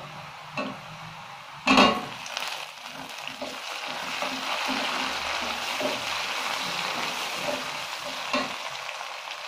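Tomato pieces going into hot mustard oil and fried onions in an aluminium kadai: a loud burst of sizzling about two seconds in, then steady frying sizzle as a metal spatula stirs and scrapes the pan.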